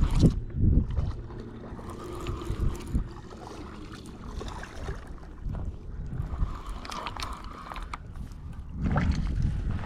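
Wind rumbling on the microphone outdoors, with a few low thumps from handling.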